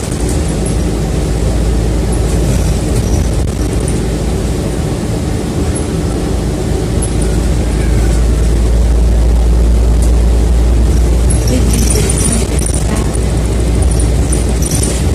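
City bus driving, heard from inside the passenger cabin: a steady low engine and road rumble that grows louder for a few seconds just past the middle, with a few light rattles near the end.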